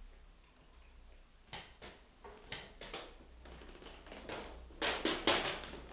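A sheet of paper rustling and crackling as it is handled, in a run of short crackles that grows louder about five seconds in.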